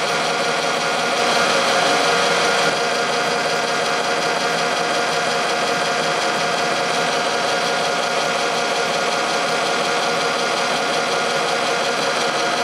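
Lapidary faceting machine's motor running steadily, spinning its lap while a gemstone is cut or polished; a little louder for a moment about one to three seconds in.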